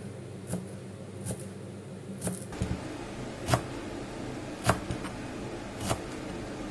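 Chef's knife chopping a bunch of fresh dill on a plastic cutting board: sharp knocks of the blade on the board about once a second, the hardest ones a little past the middle, over a steady low hum.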